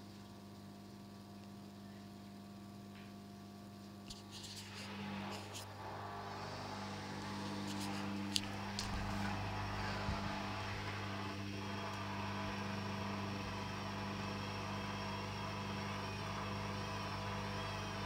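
Hoover Dynamic washing machine drum motor starting up for the spin. After a few clicks it comes in about five seconds in and settles into a steady whirring whine over a low hum, turning a load still full of suds, the condition that sets off its sudslock.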